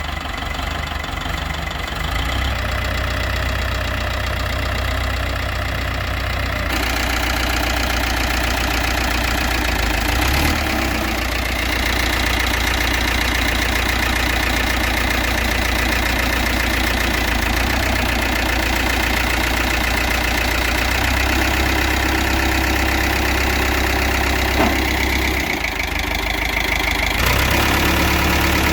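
Caterpillar D3B bulldozer's 3204 direct-injection diesel engine idling steadily, its tone shifting a few times.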